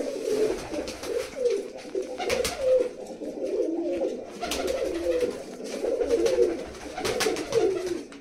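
Many domestic pigeons cooing at once in a continuous, overlapping chorus, with a few sharp taps now and then.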